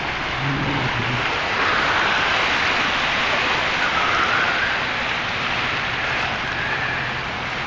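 Steady rush of surf and wind at the shoreline.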